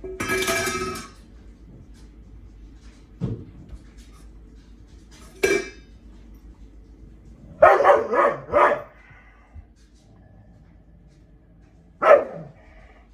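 Dog barking in play over a stuffed toy: one drawn-out bark at the start, single barks after that, a quick run of four barks about eight seconds in, and one more near the end.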